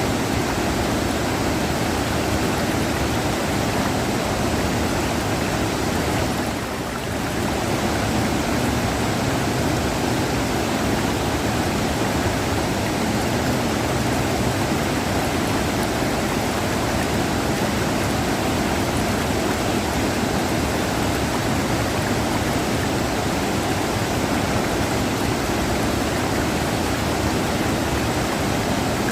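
River water rushing in a steady, dense hiss, with one brief slight dip about seven seconds in.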